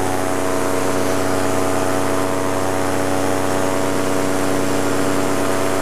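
Paramotor engine and propeller running at a steady throttle in flight: an even, unbroken drone.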